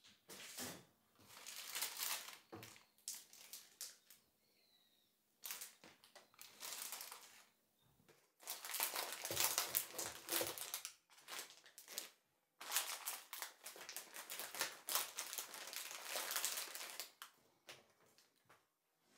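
Plastic food packets crinkling as they are handled and packed into a wicker basket. The crinkling comes in four spells with short pauses between them.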